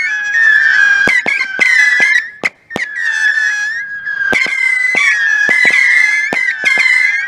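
Extreme Saturn Missile 50-shot battery firing in rapid succession: overlapping missile whistles with about two stages, two close pitches sounding together, cut by many sharp pops as the missiles burst. There is a brief lull about two and a half seconds in.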